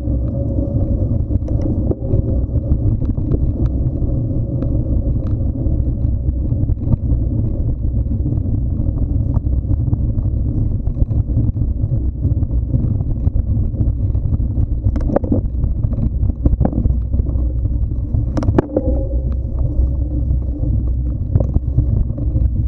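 Steady low rumble of wind buffeting and ground noise on an action camera moving along a dirt trail. A few sharp knocks and rattles come in the second half.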